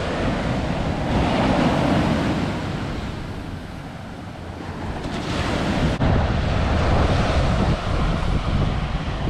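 Ocean surf breaking and washing up the sand, with wind buffeting the microphone. It swells, eases off about four seconds in, then comes back louder about six seconds in.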